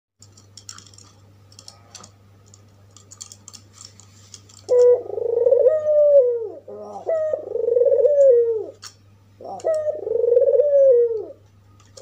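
Albino white Barbary dove (puter putih) cooing: after a few seconds of faint clicks, three rolling coo phrases about two seconds long each, every one sliding down in pitch at its end. A faint steady low hum runs underneath.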